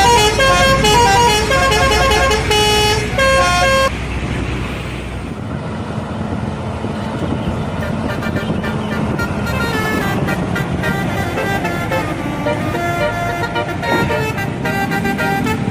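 Indonesian bus telolet horn, a multi-tone air horn, playing a quick melody of short notes for about four seconds over a low engine rumble. After that, fainter shifting horn tones carry on to the end.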